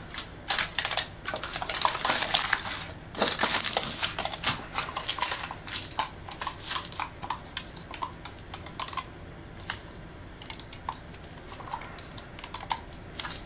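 Heavy-duty aluminium foil crinkling and crackling as it is handled and pressed over a hookah bowl, in dense louder bursts for the first few seconds, then in lighter scattered crackles.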